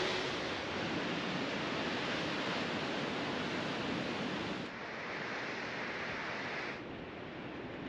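Steady rushing wash of ocean surf with wind. Its sound shifts abruptly about two thirds of the way through and again near the end, dropping slightly each time.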